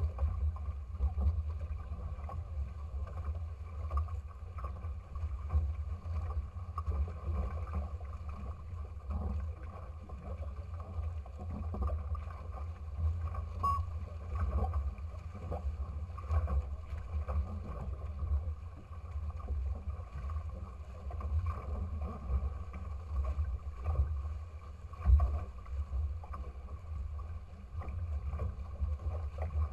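Wind buffeting the microphone in a deep, gusty rumble, over water rushing and slapping along a small trimaran's hull as it sails.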